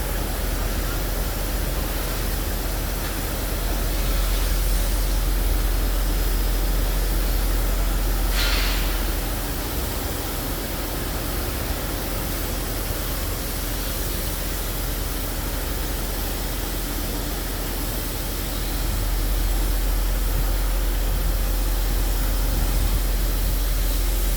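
Steady rumbling noise of heavy construction machinery running. It swells twice, and a short hiss comes about eight seconds in.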